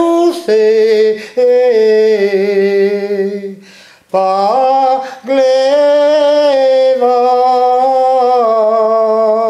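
A man singing a Breton song unaccompanied, in long held and gently wavering notes, in two phrases with a breath between them about four seconds in.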